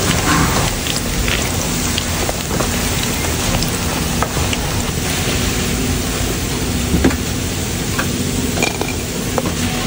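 Hot oil sizzling steadily in a nonstick pan as pieces of food fry, with scattered light clicks of a plastic spatula against the pan.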